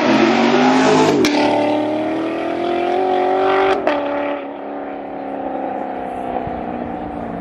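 A Chevrolet Corvette's V8 accelerating hard, the revs climbing twice with an upshift about a second in and another near four seconds. After the second shift it drops to a quieter, steadier drone as the car pulls away.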